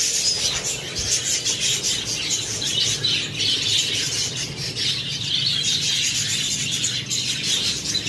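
A flock of budgerigars chattering, a steady run of many overlapping high chirps and warbles.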